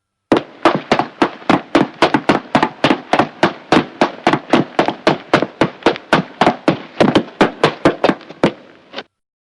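Horse hooves trotting on a hard floor: sharp, hollow hoofbeats at about four to five a second in a steady, slightly uneven rhythm, stopping abruptly near the end.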